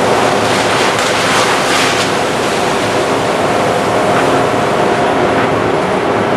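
Truck-mounted street sweeper running with a steady engine hum under a loud rushing noise, with a few brief hissing surges in the first two seconds.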